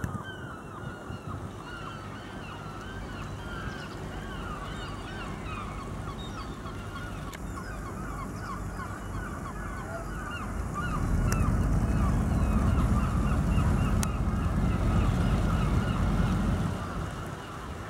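A flock of birds calling all at once, a dense chatter of short repeated calls. From about eleven seconds in to near the end, a louder low rumble rises under them and then drops away.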